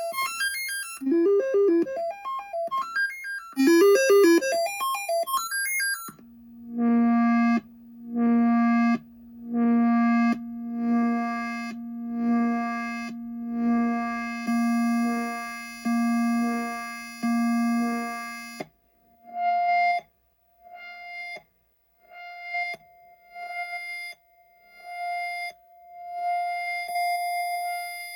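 Commodore 64 SID sound chip playing a diagnostic cartridge's test tones: first fast warbling pitch sweeps, then a run of repeated synth notes about once a second over a held low tone, and from about two-thirds of the way through, shorter repeated notes at a higher pitch. The chip comes through the test as working.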